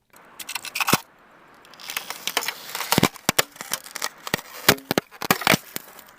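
Recording of ice breaking: a run of sharp, irregular cracks and crackles that grows denser from about two seconds in.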